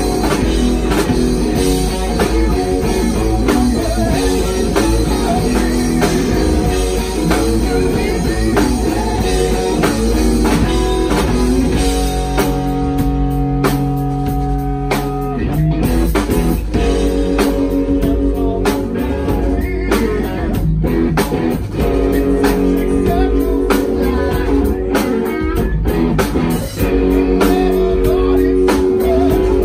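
A live rock band plays loudly with electric guitars, bass guitar and drum kit. About twelve seconds in, the band holds a ringing chord for some three seconds, then comes back in with sustained chords over the drums, with singing near the end.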